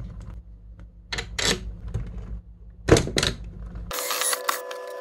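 A screwdriver and small bolts clicking and scraping in 3D-printed plastic mount parts, a few separate sharp strokes, over a low hum that stops about four seconds in.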